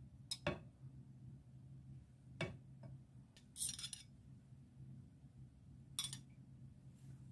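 Stainless steel kitchen tongs clicking and clinking against ceramic dishes a handful of times, with a short scrape a little past the middle, over a faint steady low hum.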